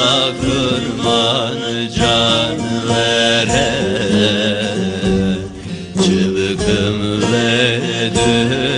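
Background music: sustained drone-like tones under a wavering melody line. It dips briefly a little past the middle, then comes back in full.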